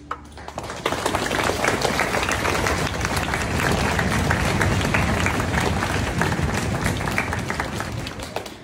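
Audience applauding at the end of a piece by a string orchestra. It starts with a few claps, swells about a second in, and thins out near the end.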